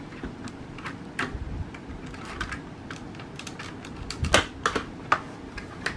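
Cross-stitch needle and thread being worked through stretched stamped fabric: irregular soft clicks and taps, the sharpest about four seconds in.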